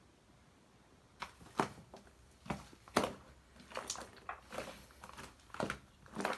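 Slime being squeezed and kneaded by hand, giving a string of irregular crackling, squishing pops starting about a second in.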